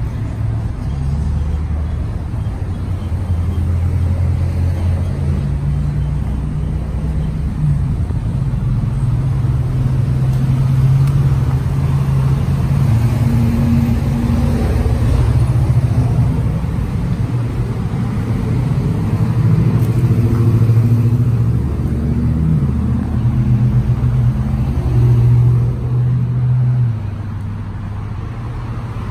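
Low, steady rumble of a motor vehicle running close by, its pitch shifting up and down now and then.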